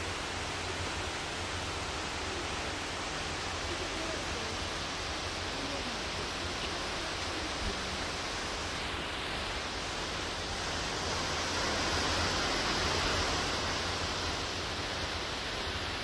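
Steady rushing hiss of background noise, a little louder for a few seconds past the middle.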